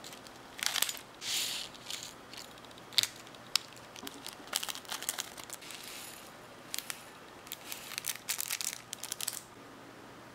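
Scissors cutting open a small foil sachet, then the packet crinkling as crunchy topping bits and sprinkles are shaken out into a small ceramic dish. Irregular crinkles and light sharp clicks come and go, stopping shortly before the end.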